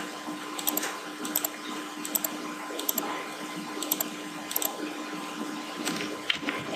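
Steady background hum and hiss, with faint high ticks in pairs repeating about every three-quarters of a second.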